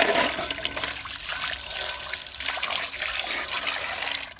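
Tap water running into a stainless steel bowl, trickling and splashing as the bowl is rinsed. It cuts off just before the end.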